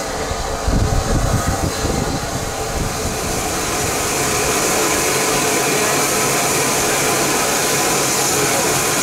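Steam railway train: a low, uneven rumble for the first few seconds, then a steady hiss that builds and holds.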